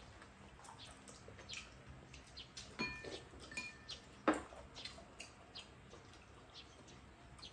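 Spoons and chopsticks clicking and tapping against ceramic bowls and a pan while eating. About three seconds in, a utensil strikes a bowl and it rings briefly, twice, and a sharper clack follows a second later.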